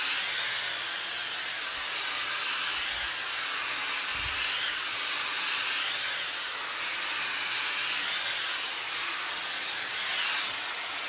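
Shark Flex hair dryer with its paddle brush attachment blowing a steady hiss of air through hair, the rush swelling and fading every couple of seconds as it works through.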